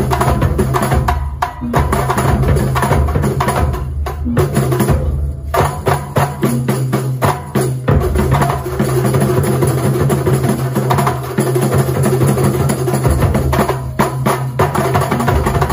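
Kuntulan ensemble playing live: dense layered drums and percussion in a steady rhythm, with a few brief breaks in the beat a few seconds in.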